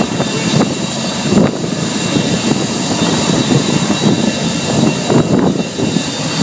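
Avro Vulcan XH558's four Rolls-Royce Olympus turbojets running at taxi power: a steady jet rumble with a high whine of several held tones over it.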